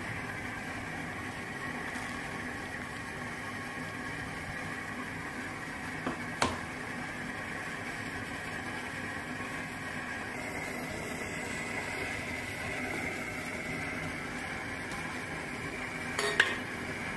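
Sambar boiling in a steel pot on a gas stove: a steady bubbling hiss. A metal spoon clinks against the pot about six seconds in and again near the end, as it is stirred.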